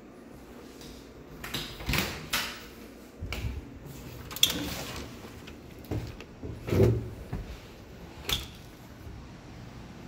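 A door being opened and shut: a string of separate clicks and knocks from the handle, latch and door.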